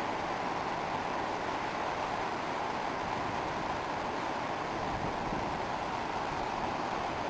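Steady rushing of a muddy river swollen by rainy-season flow in the valley below, an even wash of water noise with no breaks.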